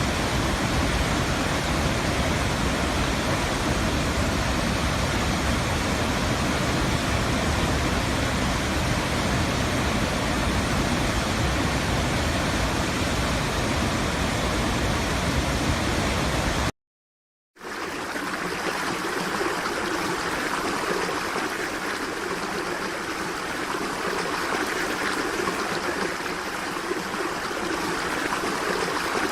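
Steady rushing water with a heavy low rumble, which cuts off suddenly about two-thirds of the way through. After a second of silence, a lighter flow of running water begins, with much less low rumble.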